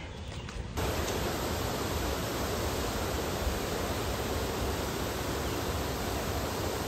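Water pouring over a low river weir, running high: a steady, even rush that starts suddenly just under a second in.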